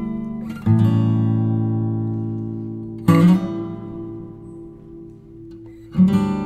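Background music on acoustic guitar: chords strummed and left to ring and fade, a new strum about every two and a half to three seconds.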